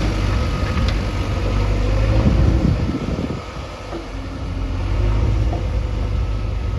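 JCB 3DX backhoe loader's diesel engine running steadily with a low hum. It eases off briefly about three and a half seconds in, then picks up again.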